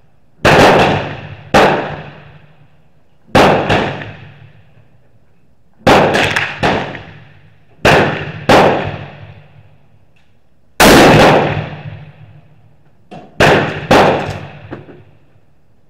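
Rifle gunshots from several shooters on a covered firing line, about ten in quick succession, each followed by a ringing echo that dies away over about a second. A longer, louder blast comes about two-thirds of the way through.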